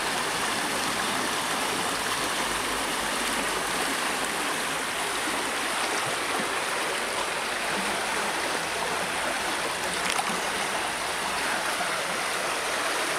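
Shallow river water rushing over a stony bed, a steady, unbroken flow.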